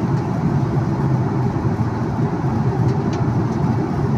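Steady cabin noise of a jet airliner in cruise, heard inside the cabin: an even, low-pitched drone of engines and rushing air.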